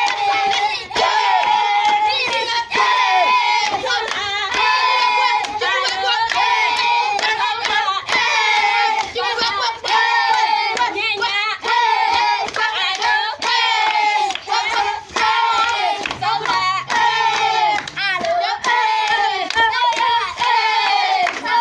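A group of children singing together and clapping their hands in a steady rhythm.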